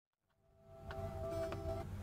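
Silence for about half a second, then music from a car radio fades in, heard inside the car's cabin over a low steady rumble of engine and road.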